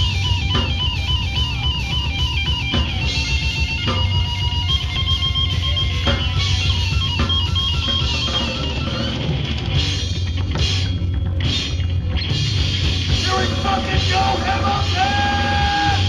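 Heavy rock band playing live: distorted electric guitar and bass guitar over a drum kit. Fast repeated picked notes in the first few seconds, then long held high notes near the end.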